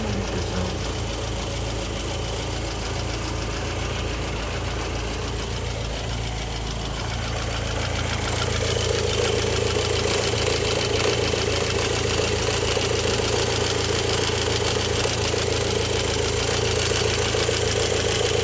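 MK5 Golf GTI's turbocharged 2.0-litre four-cylinder idling steadily, warm at operating temperature. A mid-pitched drone in the hum grows louder about eight seconds in.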